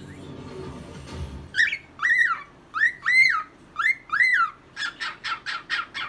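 Cockatiel singing: clear whistled notes that rise and fall, mostly in pairs, begin about a second and a half in, then quicken into a fast run of short chirped notes near the end.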